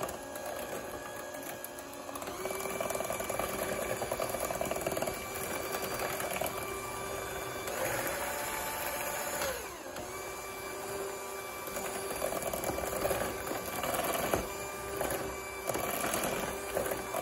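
Electric hand mixer running steadily, its beaters whisking beaten eggs and sugar in a stainless steel bowl, with a steady whine. The pitch drops briefly about halfway through.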